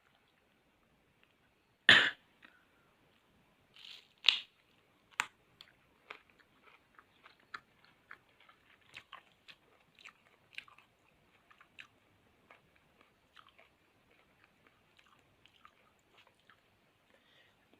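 Close-up chewing of crunchy young unripe papaya with its seeds: irregular small crunches and wet mouth clicks. Two loud sharp sounds stand out about two and four seconds in, and the chewing grows softer toward the end.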